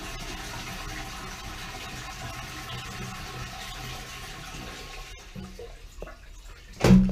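Toilet flushing: water rushing out of a wall-mounted cistern into the bowl, steady for about five seconds and then dying away. The water supply has been shut off, so the cistern is being emptied and does not refill. A brief thump comes near the end.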